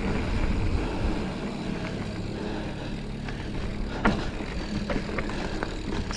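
Giant Fathom mountain bike descending a dirt trail with the brakes on: steady tyre and trail rumble, with a few sharp knocks and rattles from bumps in the second half.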